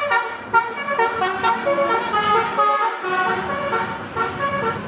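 Bus musical 'telolet' air horn playing a quick tune of short notes stepping up and down in pitch, over a low rumble of vehicle noise.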